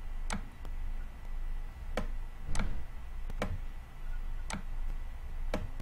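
Sharp single clicks, about seven in six seconds and irregularly spaced, from the input device used to draw arrows on an on-screen whiteboard. A low steady hum runs underneath.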